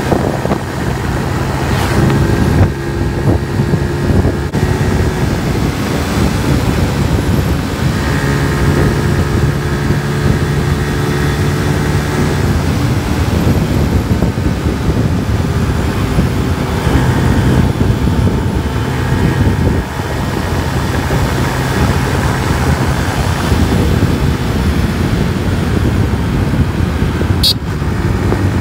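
Yamaha R15 motorcycle's single-cylinder four-stroke engine running at road speed over a dense rushing noise, its note shifting up and down a few times as the throttle changes.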